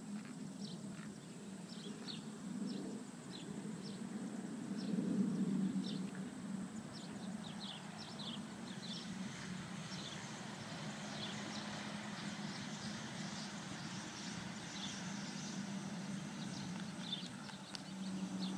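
Outdoor field ambience: small birds chirping again and again over a low steady rumble, with the faint hoofbeats of a horse being ridden over grass.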